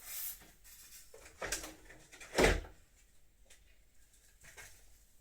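A few handling knocks and clicks from plastic headlight parts, the loudest a thud about two and a half seconds in.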